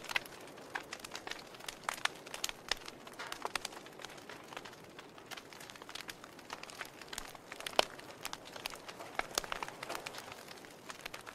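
Wood log fire crackling: irregular small pops and snaps from the burning logs over a faint steady hiss, with one sharper pop about eight seconds in.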